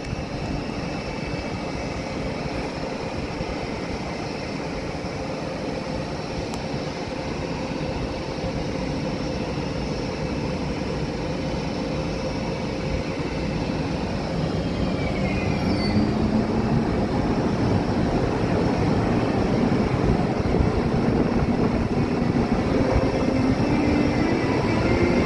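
Siemens Taurus (MÁV class 470) electric locomotive at a standstill with its cooling fans running steadily. About halfway through it starts to pull away, and its traction converter whines in rising steps as the noise slowly grows louder.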